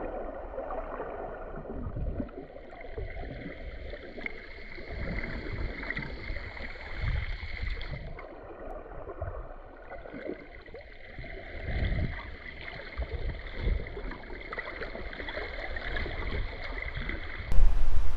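Muffled underwater sound from a camera held under the sea: water sloshing and moving, with irregular low thuds and knocks and a faint steady high hum. About half a second before the end it cuts to louder open-air noise.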